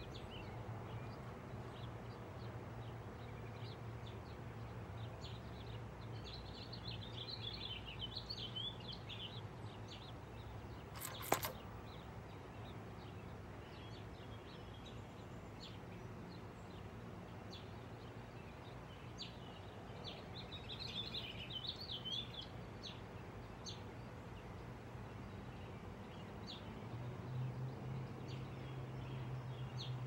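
Quiet outdoor ambience: a steady low hum with small birds chirping and singing, in two fuller bursts of song about seven and twenty seconds in. A single sharp click about eleven seconds in.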